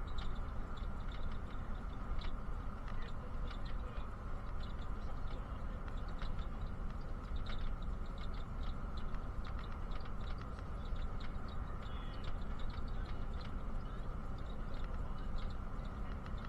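Inside a moving bus: a steady low rumble of engine and road noise, with frequent light rattles and ticks from the cabin.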